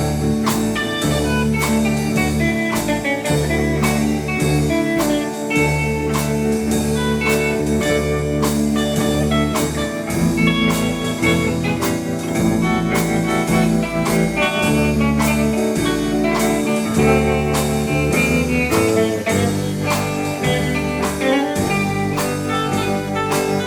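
Country band playing an instrumental break: guitar leading over bass notes and a slow, steady drum beat, with no singing.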